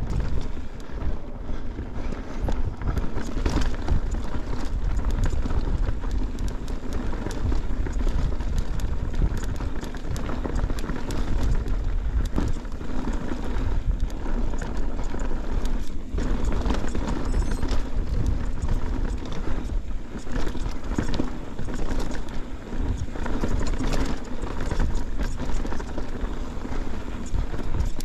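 Mountain bike riding over rough dirt trail: tyres crunching and rumbling on rock and gravel, with constant small rattles and clicks from the bike and a low rumble throughout.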